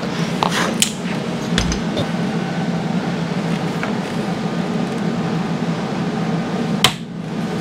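Steady low mechanical hum, like a running shop fan, with a few light clicks and taps from handling small parts and one sharper click near the end.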